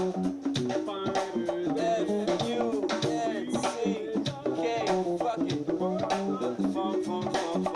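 A live band playing during a sound check: a drum kit keeping a steady beat under pitched instruments.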